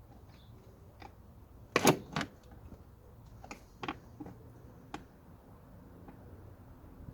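Scattered clicks and knocks of parts and hand tools being handled while a car's air-conditioning blower fan housing is put back together, with a louder pair of knocks about two seconds in.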